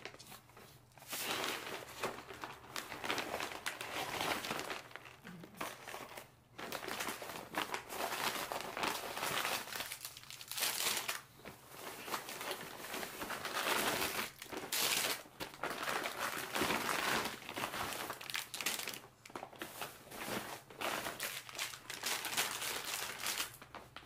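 Crinkling and rustling handling noise that comes and goes in stretches of a few seconds, with short pauses between, over a faint steady low hum.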